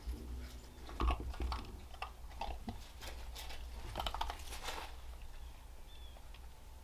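A livestock guardian dog puppy eating from its food bowl: irregular chewing and crunching with small clicks, which grow fainter over the last couple of seconds.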